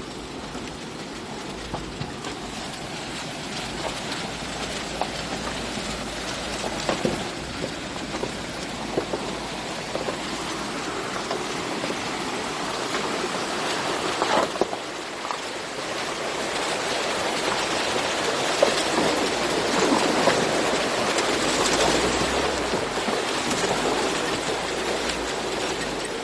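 An old off-road jeep crawling over a rocky riverbed beside a rushing stream: a steady rush of water mixed with many knocks and clatters from the vehicle on the rocks, growing louder in the second half.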